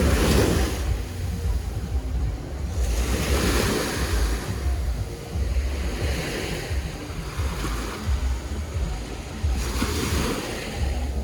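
Sea waves washing onto the shore, swelling and falling back every three seconds or so, with wind rumbling on the microphone.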